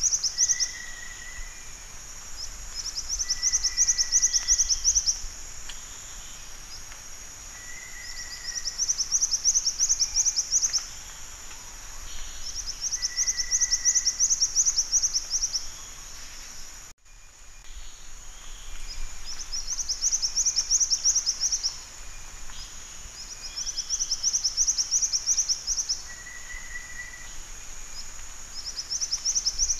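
Black-winged flycatcher-shrike calling: high, rapid trills about two seconds long, repeated every four to five seconds over a steady high background hiss. The sound cuts out for a moment about halfway through.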